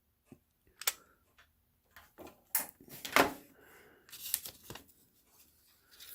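Handling noises while hot glue is applied to a small circuit board: several sharp clicks and short rustles, the loudest click about three seconds in.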